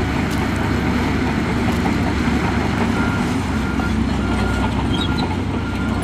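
Heavy diesel construction machinery running steadily, mostly low-pitched. A faint high tone repeats several times in the second half.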